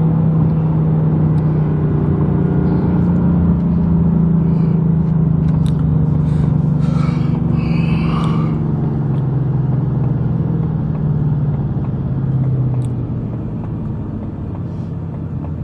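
Ford Mustang GT's V8 engine running steadily while the car cruises, heard with road rumble. About thirteen seconds in, the engine note drops in pitch and gets quieter as the car eases off.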